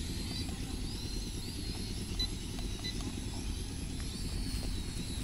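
Steady low outdoor rumble with faint, wavering high chirps now and then.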